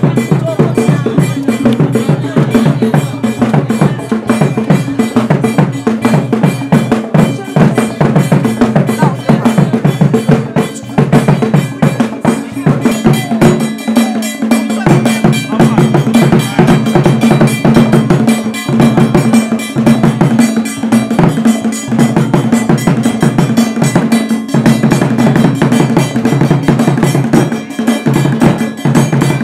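Percussion music with drums and a bell playing a fast, steady rhythm, suited to the funeral dancing.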